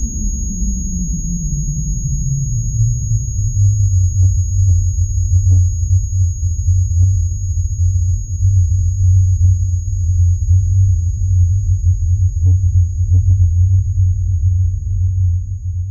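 Eerie synthesized trailer sound effect: a deep low pulse that slides down in pitch over the first few seconds, then holds as a steady low rumble with faint scattered clicks, fading out near the end.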